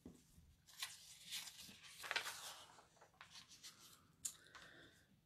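Faint rustling of paper catalog pages being handled and turned, a few soft brushes and swishes.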